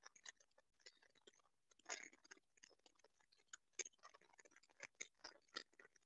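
Near silence: quiet room tone with faint, irregular soft clicks and crackles scattered through it.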